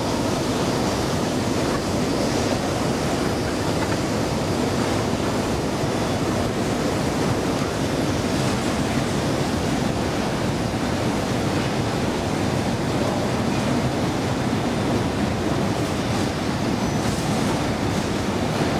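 Steady, even noise of a moving escalator and the underground metro station around it, with no distinct clicks or tones.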